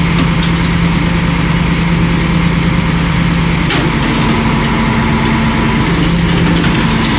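KAMAZ scrap truck's diesel engine running steadily while it powers the truck's hydraulic grab crane. A second, slightly higher steady tone joins about four seconds in, with a couple of faint clicks over the engine.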